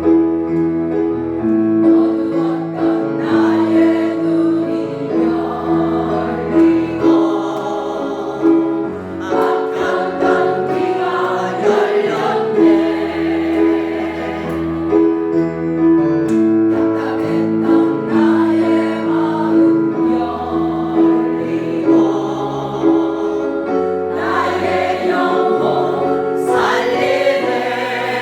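Christian praise song: a choir singing over sustained accompaniment with a slowly changing bass line.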